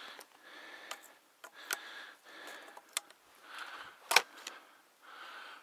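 A person pushing through tall, dry marsh reeds: soft swishes about once a second, with a few sharp clicks, the loudest about four seconds in.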